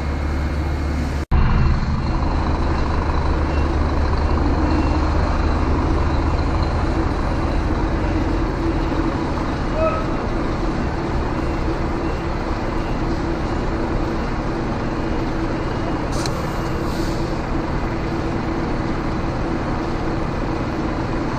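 Scania truck's diesel engine running steadily, heard from inside the cab, with a constant low drone. The sound drops out for an instant about a second in.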